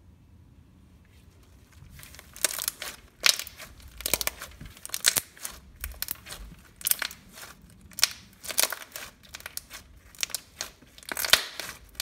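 Slime being squeezed and poked by hand, giving a run of sharp crackles and crinkling pops that start about two seconds in.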